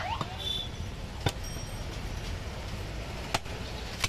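Butcher's knife work at a wooden chopping block: a few sharp knocks, about a second in, a little past three seconds and again near the end, over a low steady rumble of street background noise.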